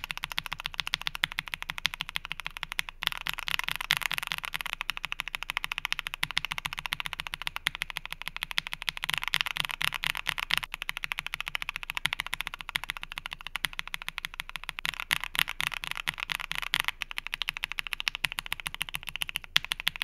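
Rapid typing on a mechanical keyboard fitted with Gateron Oil King linear switches (polished stems, 65 g extended springs, heavily factory-lubed), first stock and then hand-lubed and filmed, with short breaks between passes. The lubed and filmed switches give a deeper, more muted clack.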